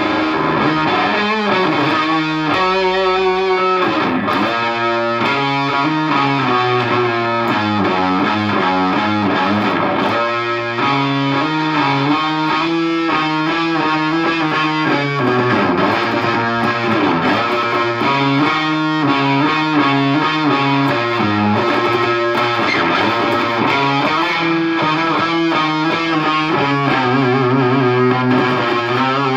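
Electric guitar played through a Visual Sound Angry Fuzz pedal into a Peavey Bandit 112 combo amp: fuzz-distorted single-note phrases and held notes that change pitch every second or so.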